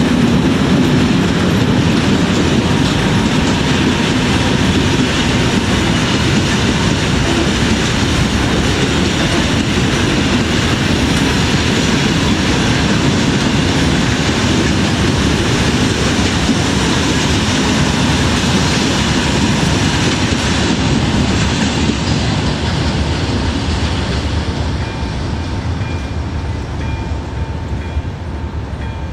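Freight train of loaded hopper wagons rolling past at close range, wheels clattering over the rail joints. The train noise fades over the last several seconds as the last wagon passes, and the level crossing's electronic warning bell can be heard ringing in an even beat.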